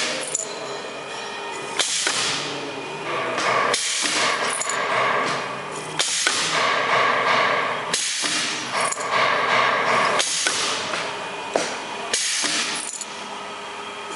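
Dental bur sachet-packing machine running in repeating cycles about every two seconds, each cycle starting with a sharp click or knock followed by a stretch of mechanical noise.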